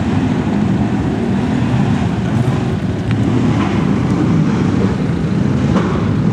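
Motorcycle engines running in a steady low drone as riders leave after a bike meet.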